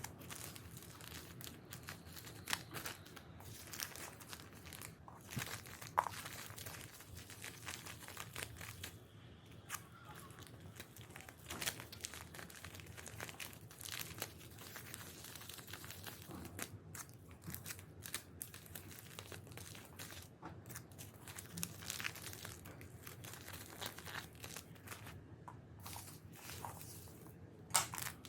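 Packaging being handled and unwrapped by hand: irregular crinkling and tearing rustles, with a sharper crack about six seconds in.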